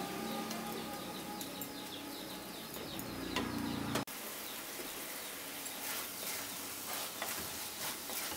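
Grated coconut and sugar sizzling in a nonstick pan while a wooden spatula stirs and scrapes through it, the sugar melting over a low flame. The sound breaks off for an instant about four seconds in.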